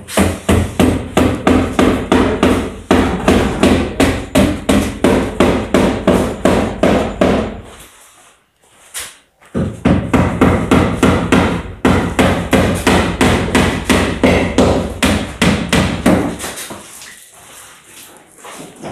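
Rapid hammering, about five blows a second, in two long runs with a short pause between them; the blows stop near the end.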